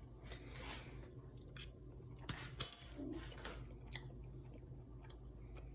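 Someone chewing a mouthful of hard-shell taco, with soft mouth noises and a few clicks, the loudest a sharp click with a brief high ring about two and a half seconds in.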